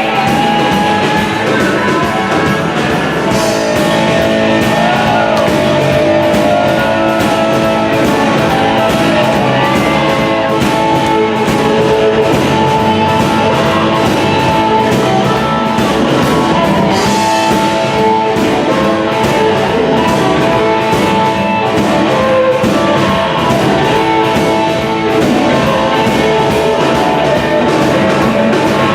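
Blues-rock band playing live: electric guitar lines with bent notes over a drum kit's steady beat.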